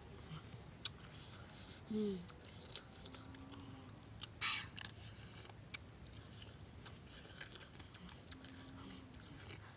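Fingers picking and scraping at the contents of a coconut-shell bowl: scattered faint sharp clicks and one short scrape about halfway through. A few brief low hums are heard between them.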